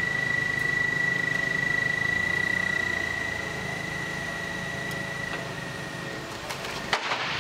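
Forklift running under load as it slowly lifts a large aircraft wing section, a steady low engine hum with a steady high whine that dies away about five seconds in. There is a brief clatter near the end.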